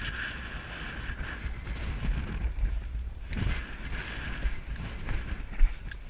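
Wind buffeting a body-worn camera's microphone: a steady low rumble with a hiss that fades and returns, and one sharp knock a little before the end.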